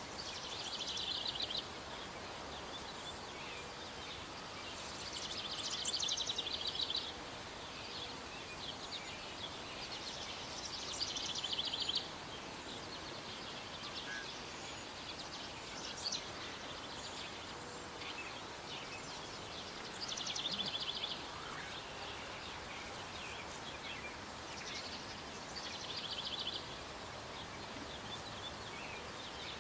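A bird's high-pitched rapid trill, repeated every few seconds in bursts of one to two seconds, over a steady outdoor hiss.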